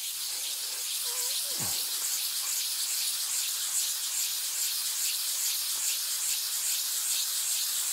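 Sharpening stone in a wooden box rubbed back and forth on wet-and-dry abrasive paper over a glass sheet, giving a continuous gritty hiss in quick, regular strokes as the stone is ground flat.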